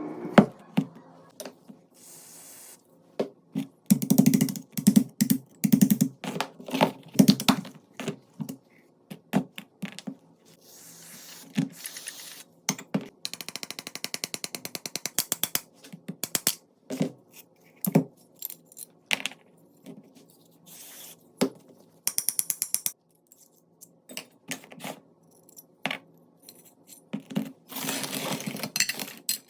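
Metal parts of a pistol being handled: irregular clicks, clinks and short rattles, with a run of rapid, even ticks around the middle.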